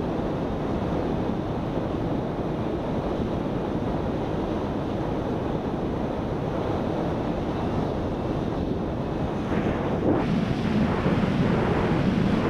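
Wind rushing over the microphone of an RC plane's onboard camera in flight: a steady windy noise that grows somewhat louder about ten seconds in.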